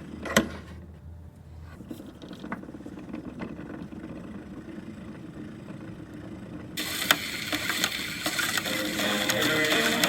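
Crackling surface noise of an old gramophone record, with a sharp click about half a second in. The crackle is dull and muffled at first and turns bright and full again at about seven seconds.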